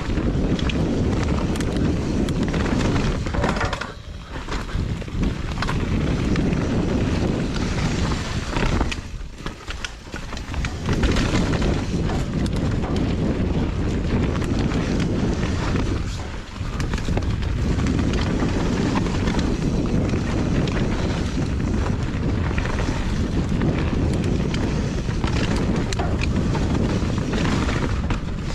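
Wind rushing over the microphone together with the rumble and rattle of a mountain bike riding fast down a dirt trail. The noise drops away briefly three times before it picks up again.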